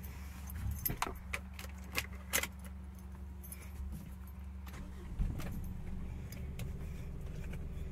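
A vehicle engine idles steadily, heard from inside the cab. A few light clicks and rattles come over the first couple of seconds, and another knock comes about five seconds in.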